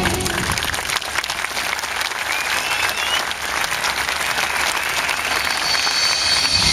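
Open-air crowd applauding after a music piece ends, a dense patter of many hands clapping, with a short whistle rising over it about two and a half seconds in.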